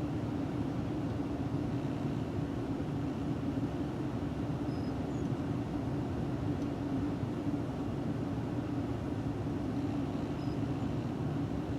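Steady mechanical hum and rumble with a constant droning tone, unchanging throughout.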